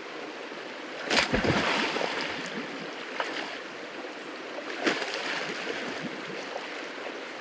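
River water with people splashing about in it as they go in for a swim: a steady rush of water, with louder splashes about a second in and again near five seconds.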